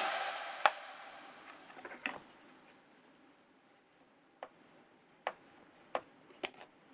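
Background music stops, then a handful of light, separate clicks and taps follow one another a second or so apart.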